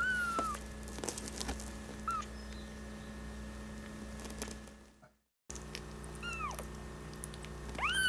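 A newborn kitten mewing with short, high-pitched cries while it is handled for tube feeding with a catheter. It cries four times, and the last cry near the end is the loudest and longest. Faint handling clicks come between the cries, and the sound cuts out briefly about five seconds in.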